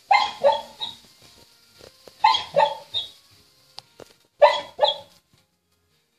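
A sleeping golden retriever puppy making short bark-like vocal sounds in its sleep, in three quick runs of two or three each, about a second apart.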